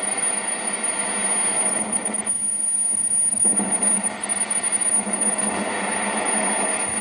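Roberts R200 transistor radio's speaker giving out loud hiss and static with a strong steady high-pitched whistle while the set is being tuned, with no station coming through; the hiss dips briefly about two and a half seconds in. The set is alive after an AF117 was replaced with a BC557B silicon transistor, but it is not receiving.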